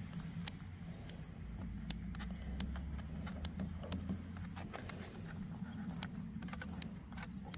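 Scissors cutting through a pizza, with scattered short snips and clicks of the blades at irregular intervals over a low, steady hum.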